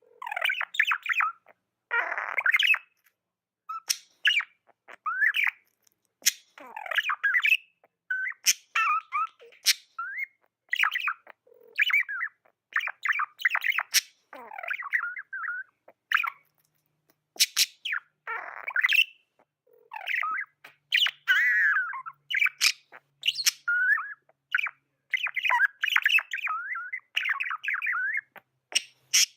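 Budgerigar chatter: a steady run of short chirps and squawks, with sharp clicks mixed in and brief pauses between bouts.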